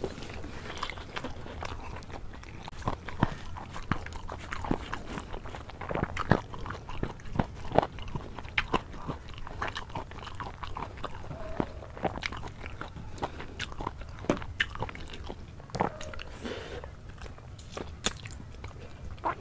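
A person eating rice and chicken curry by hand close to the microphone: chewing and biting, with many short, irregular mouth clicks and crunches.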